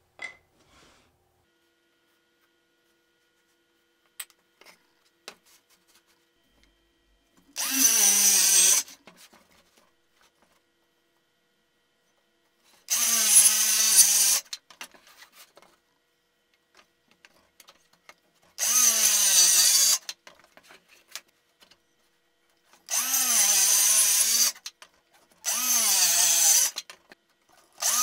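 DeWalt cordless circular saw riding a guide track, making five short cuts through thin boards, with a sixth starting at the end. Each cut lasts about a second and a half: the motor spins up, its pitch dips as the blade bites into the wood and recovers, then the motor stops. Light clicks and knocks come between cuts.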